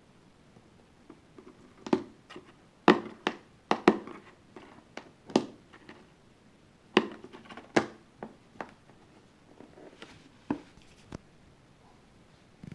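Cardboard box being pawed and bumped by a cat trying to get in through its closed end: irregular sharp knocks and short scuffs of cardboard, loudest about three seconds in and again around seven to eight seconds.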